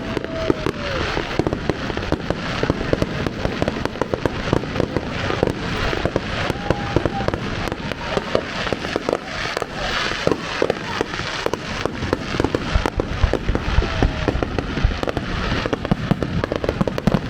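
A fireworks display going off in quick succession: a dense, unbroken string of bangs and crackles with no pause.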